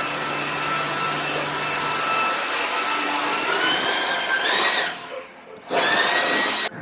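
A motor-driven appliance running with a steady rushing noise and a whine. The whine rises in pitch before it cuts out about five seconds in, then it runs again for about a second.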